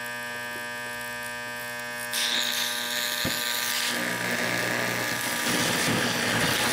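Steady electrical buzz from electronics being overpowered on pulsed DC. About two seconds in a hiss of burning and sparking joins it, growing rougher from about four seconds.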